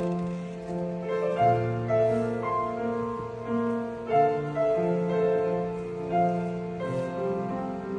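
Piano playing slow classical chords, the accompaniment leading into a choral piece.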